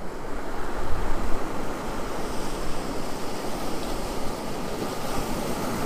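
Ocean surf washing onto a beach: a steady rush of breaking waves.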